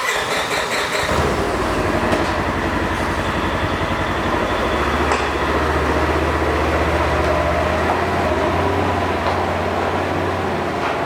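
A motor vehicle's engine running steadily: a low, even drone with rumble and noise over it, settling in about a second in.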